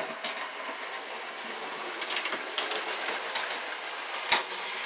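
American Flyer #561 model locomotive running on the layout track, a steady whirring rumble of motor and wheels on rail with a few sharp clicks, the loudest near the end. The locomotive's cow catcher touches the track from time to time.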